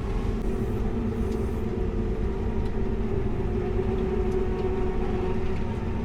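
Farm tractor engine running steadily under load while carrying a felled tree, a constant hum over a low rumble.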